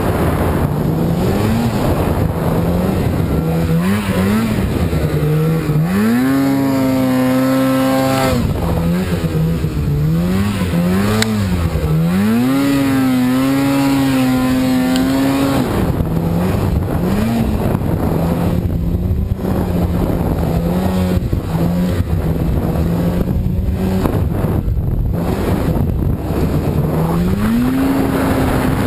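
Polaris RMK snowmobile's two-stroke engine revved up and down again and again while the sled ploughs through deep powder. Twice it is held at high revs for a couple of seconds, over a steady rush of track and snow noise.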